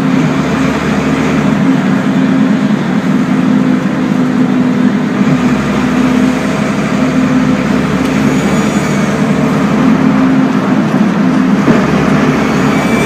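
1998 Metrotec 16.210 bus with a Custom Coaches 510 body running on the road, heard from inside the passenger cabin: a steady, even engine and road noise with no big changes.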